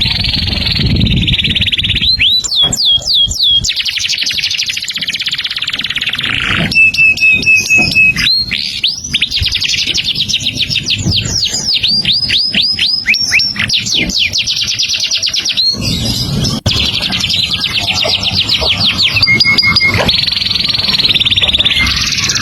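A songbird singing continuously in long, varied phrases: fast runs of downward-sweeping whistles, buzzy trills and short steady whistled notes, with hardly a pause.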